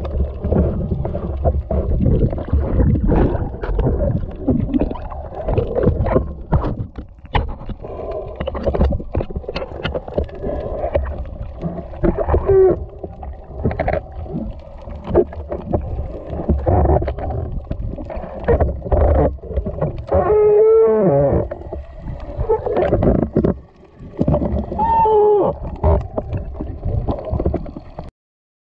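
Underwater sound picked up through an action camera's waterproof housing during spearfishing: dense muffled clicks and knocks over a low rumble, with a few short tones that bend up and down. The audio cuts off just before the end.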